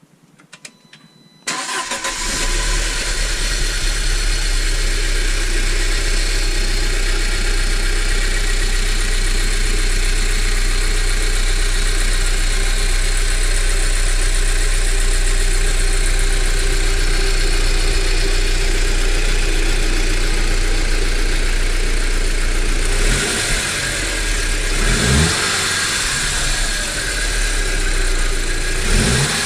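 Audi B7 2.0T FSI turbocharged four-cylinder starting about a second and a half in and settling into a steady idle, then revved briefly a few times near the end. The engine is freshly rebuilt with new piston rings and breathes through a cat-delete downpipe with the turbo muffler deleted.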